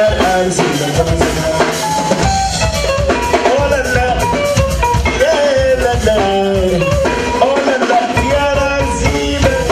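Live Mandinka band music: kora, electric guitar, djembe and drum kit playing together over a steady beat.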